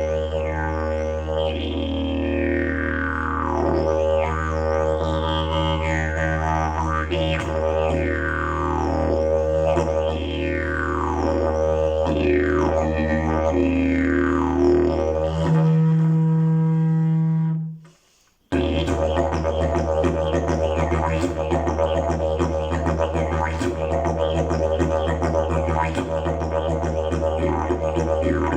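Fiberglass-and-dried-leaf slide didjeridoo playing a steady low drone, with sweeping wah-like changes in its overtones about once a second. Past the middle it jumps to a higher held toot, cuts out briefly, then the drone returns with a faster pulsing rhythm.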